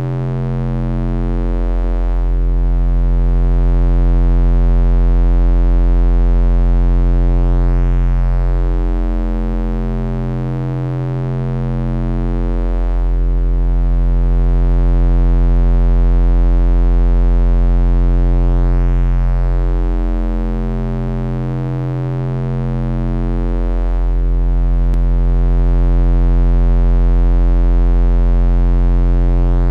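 Synthesized bass drone: a deep, steady low hum with a stack of steady tones above it. It swells and fades slowly, dipping about every eleven seconds.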